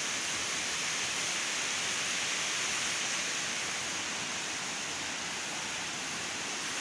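Steady rushing of flowing water from a small mountain waterfall cascading down rocks.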